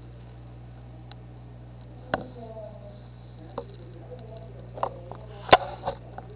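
Pug's mouth and nose making a scatter of small wet clicks and faint snuffles, the sharpest click about five and a half seconds in, over a steady low hum.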